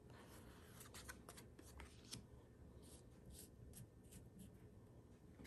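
Faint, irregular soft flicks and scrapes of Pokémon trading cards being slid one at a time off a hand-held stack and laid on a pile.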